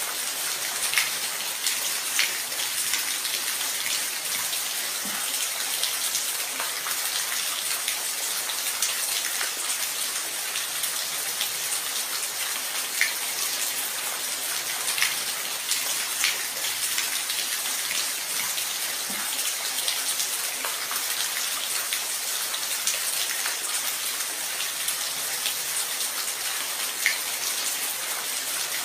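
Steady rain falling, an even hiss with scattered sharper drips landing close by every second or two.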